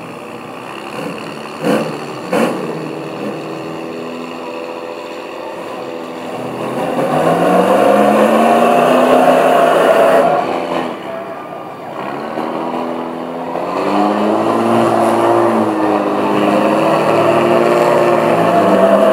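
Two pickup truck engines revving hard under load as the trucks pull against each other on a tow strap in a tug-of-war. The engines climb about six seconds in, ease off briefly around eleven seconds, then rev up again and hold high.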